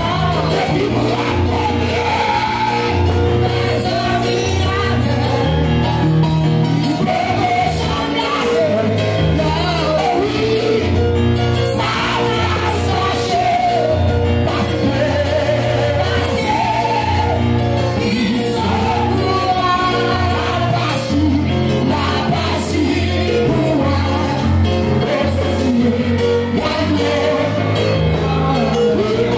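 Pentecostal worship music: a congregation singing over an amplified band, with a moving bass line under held keyboard chords.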